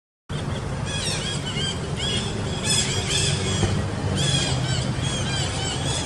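Many short, high-pitched squealing calls, several a second and overlapping, starting about a second in over a steady low rumble, after a brief dropout at the very start.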